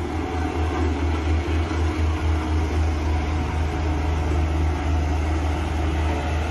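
Diesel engine of a BOMAG single-drum road roller running steadily as it drives over a gravel road, a constant deep rumble.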